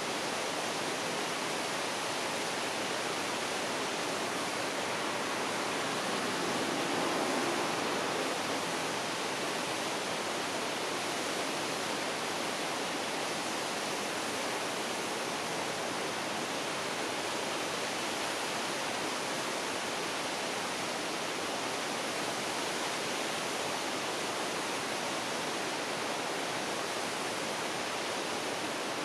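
Waterfall rushing: a steady, even wash of falling water that swells slightly about seven seconds in.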